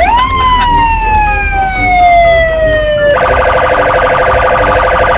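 Electronic police siren: one wail that rises quickly and then falls slowly for about three seconds, then switches to a fast pulsing electronic tone that runs on.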